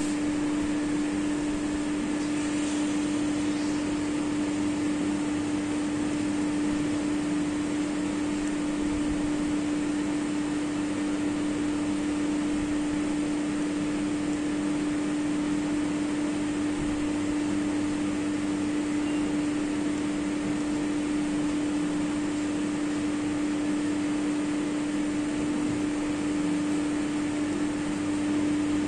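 Steady fan hum: a constant low drone with an even hiss over it, unchanging throughout.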